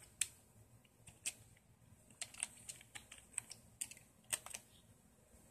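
Faint, irregular clicking of keys on a USB computer keyboard, about a dozen sharp clicks that stop near the end.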